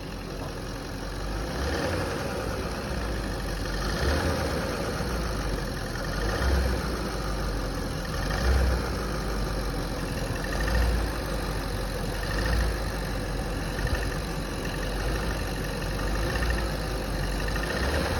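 Audi A8 D4's 4.2 FSI V8 engine running with an unpleasant knocking noise from the engine, which the owner fears may be a serious engine fault or may be something minor.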